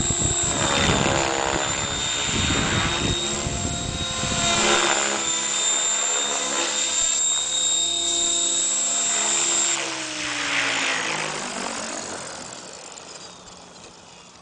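Compass Atom 6HV electric RC helicopter in flight and coming down to land: rotor blade noise with a high electric-motor whine, its pitch gliding downward. The whine stops about two-thirds of the way in, and the rotor sound then fades as the blades spool down on the grass. Wind buffets the microphone during the first few seconds.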